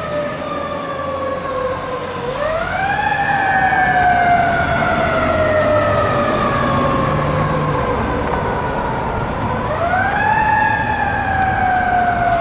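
Tower ladder fire truck's siren wailing. Its pitch climbs quickly about two seconds in and again near ten seconds, and after each climb it slides slowly down over several seconds.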